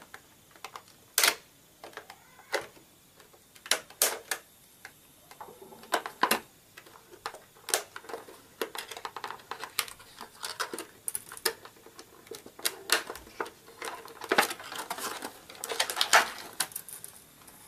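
Hobby nippers snipping the plastic ties and tabs that hold an action figure in its clear plastic tray: a couple dozen sharp, irregular clicks, with the plastic packaging rustling as it is handled between them.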